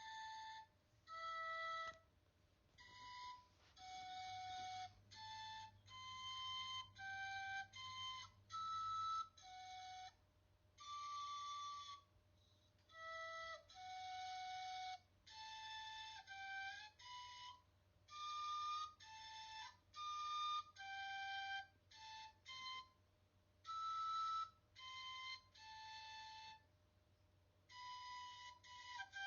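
Outro music: a single-line melody of short, separate notes in a wind-instrument-like tone, about one to two notes a second.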